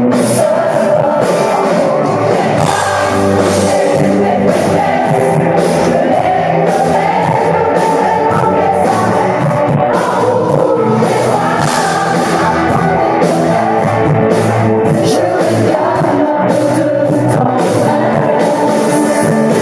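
Live pop-rock band playing with a woman singing lead, loud and steady, heard from the audience.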